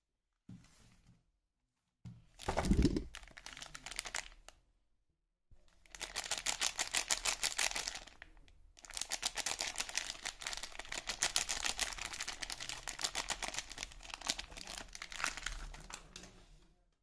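Soap packaging crinkled and unwrapped by hand. A short rustle comes first, then a handling burst with a soft bump about two to three seconds in, then two long stretches of dense, fast crackling crinkle.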